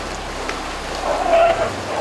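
An elephant gives a short pitched call about a second in, over a steady background hiss.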